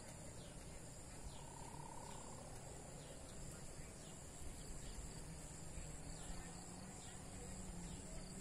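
Steady high-pitched insect buzzing, with a short falling note repeated about every two-thirds of a second, over a low, even background rush.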